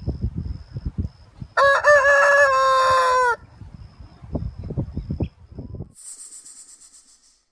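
A rooster crowing once: a single loud call of almost two seconds that starts about a second and a half in and drops in pitch at the end, with low rumbling and knocking noise around it.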